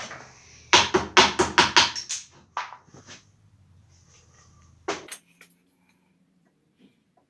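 Metal hand-tool clicks and scrapes from work on a motorcycle fork leg's grease fitting: a quick run of sharp strokes about a second in, a few scattered ticks, and one more sharp click near five seconds.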